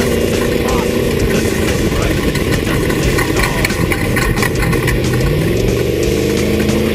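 Off-road race vehicle's engine running, with dense rattling and knocking throughout; its pitch holds steady at first, then climbs as it revs up about five seconds in.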